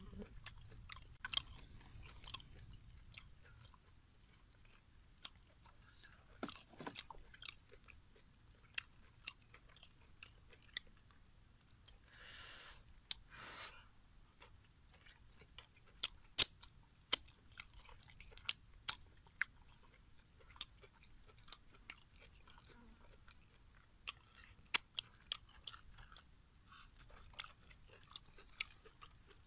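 A person chewing and eating cooked pig intestine close to the microphone: many irregular sharp, wet mouth clicks, with a short noisy burst about twelve seconds in.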